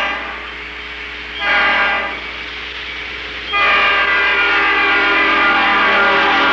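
Train horn blasts used as a sound effect in a cumbia sonidero mix. A blast ends just at the start, a short blast comes about a second and a half in, and a long held blast starts a little past halfway, with a quieter rumble in between.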